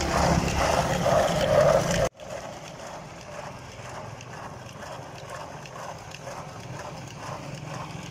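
Steel kulfi pot being twisted back and forth by hand in a tub packed with ice and salt, the ice chunks knocking and grinding against it in a steady rhythm as the kulfi is churned to set it. The level drops abruptly about two seconds in, and the churning goes on more quietly.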